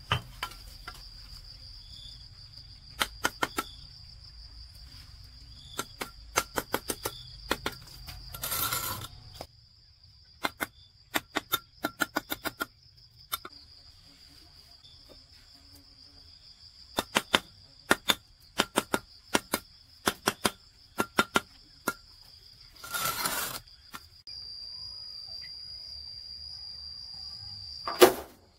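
Bricklaying trowel tapping bricks into mortar: sharp taps in quick runs of three to six, with two short scrapes, over the steady high trill of insects.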